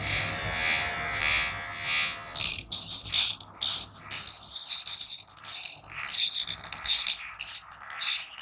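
Small battery-powered DC motor of a homemade mini angle grinder running with a steady whine, then from about two and a half seconds in, the disc grinding in short, irregular scraping bursts as it touches the work.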